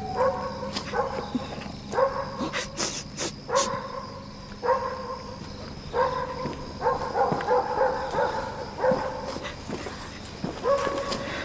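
A dog barking repeatedly, a bark or two every second or two, with a few sharp clicks in between.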